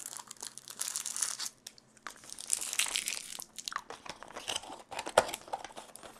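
Crinkling and tearing of a small plastic candy wrapper as an individually wrapped lemon candy is opened, in two main bursts of rustling, followed by a few scattered small clicks.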